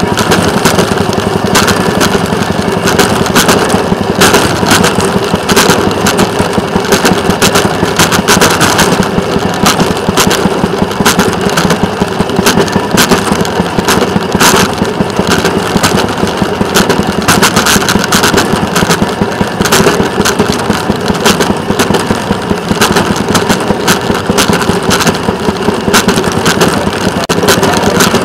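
Small engine of a rail motorcar running steadily as it travels along the track, with frequent sharp clicks and rattles.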